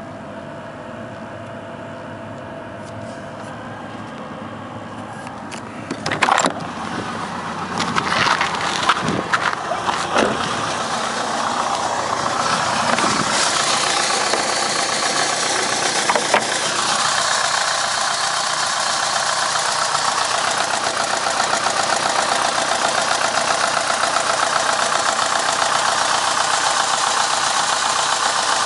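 Ford Scorpio's OHC four-cylinder engine running at idle with a fast, even knock. A run of loud irregular clatters and knocks comes between about 6 and 13 seconds in, after which the engine is louder and closer.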